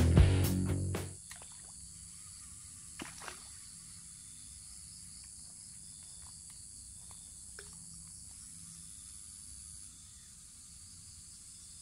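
Guitar-led intro music fades out about a second in. After it comes faint outdoor ambience with a steady high-pitched hiss that drops away near the end, and a few soft ticks around three seconds in and again later.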